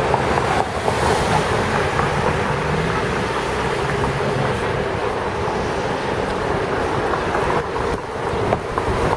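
Steady road and traffic noise from a vehicle moving along a city street, a continuous rumble with no distinct events.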